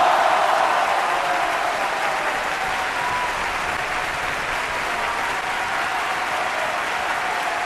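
Steady applause from an audience, a dense even clatter of many hands clapping.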